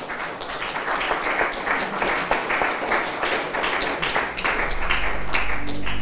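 Audience applauding, many hands clapping together. About five seconds in, low steady music comes in beneath the applause.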